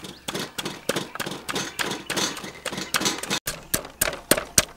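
Wooden pestle pounding galangal in a mortar to make curry paste, with steady thuds about three to four a second. The strokes become sharper and louder about three and a half seconds in.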